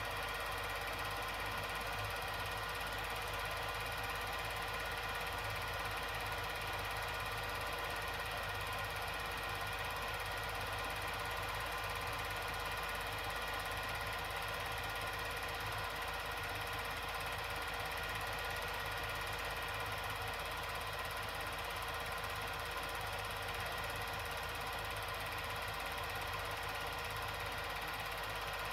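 Steady mechanical whirring with a hiss, even and unchanging throughout.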